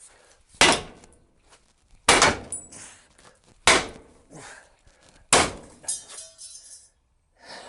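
Four heavy hammer blows on a car's front suspension and brake disc, about one and a half seconds apart. Each is a sharp metal clang with a short ring after it, as the hub assembly is beaten down to free it.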